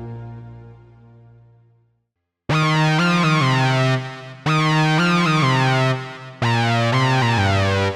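GForce Oddity 3, a software emulation of the ARP Odyssey analog synthesizer, played: a held note fades away, and after a short silence a loud, bright phrase of a few notes starts, repeated about every two seconds.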